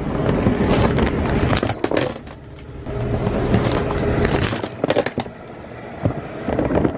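Handling noise of a camera being moved about and knocked against surfaces: irregular knocks, clicks and scrapes over a steady background rumble, going quieter twice.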